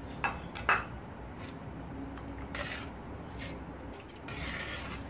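A spoon knocking twice against a metal cooking pan, then scraping along the pan while stirring milk and cream.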